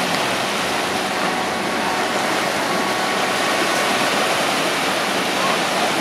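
Small waves breaking and washing up on a sandy shore, a steady surf hiss.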